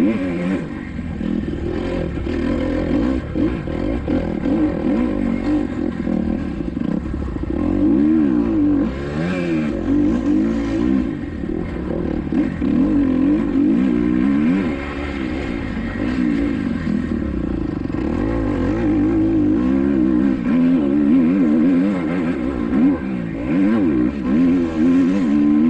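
Kawasaki KX250XC dirt bike engine revving hard and dropping back again and again, its pitch rising and falling with each burst of throttle and each gear change as it is ridden around a motocross track.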